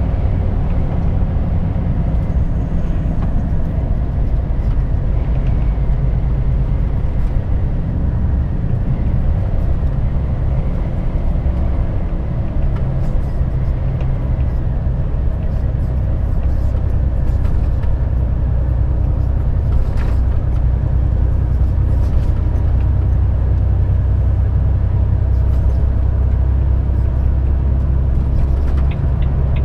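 Volvo semi-truck cruising on the motorway, heard from inside the cab: a steady low engine drone under tyre and road noise, with a few faint rattles.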